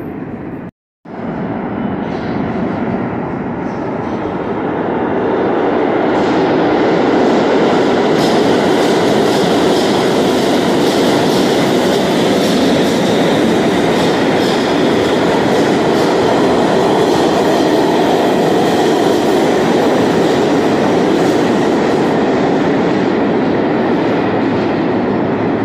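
New York City subway train running through the station on the far track: a loud, steady rumble of steel wheels on rail that builds over the first few seconds and eases near the end. The sound cuts out completely for a moment about a second in.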